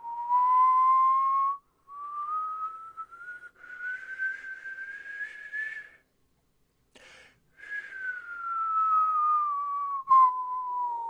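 A man whistling one slow pitch glide, rising steadily from low to high over about six seconds with two short breaks, then after a quick breath gliding back down from high to low. A brief sharp click near the end.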